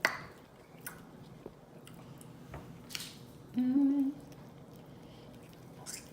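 Close-miked eating of chicken wings: chewing with sharp mouth smacks and clicks, the loudest right at the start, and a short hummed "mm" a little past halfway.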